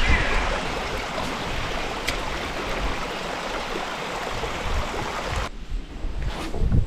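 Rushing creek water, a steady dense hiss that cuts off abruptly about five and a half seconds in, leaving a quieter outdoor background.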